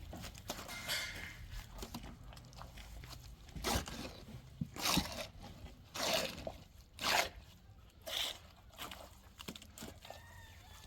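Gritty scraping crunches, five in a row about one a second, starting about a third of the way in, from work with loose building material.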